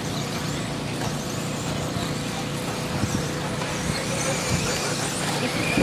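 Radio-controlled 2WD buggies racing on an off-road track, heard as a steady mix of small-motor and tyre noise with a few scattered clicks.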